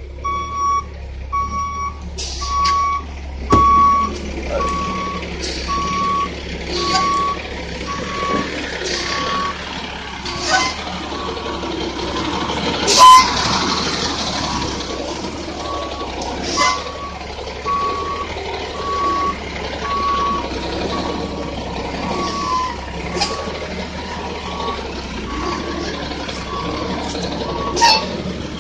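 A big work truck's reversing alarm beeping steadily, about one and a half beeps a second, over the low running of its engine as it backs up. Scattered sharp clicks and snaps come in between, the loudest about halfway through.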